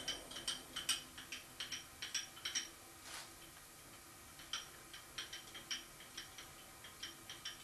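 Light, sharp metallic ticks and clinks of steel chips, irregular, a few a second with a short lull midway, as the twist drill is drawn up out of the freshly drilled 17 mm hole in a steel puck. A steadier drilling noise stops right at the start.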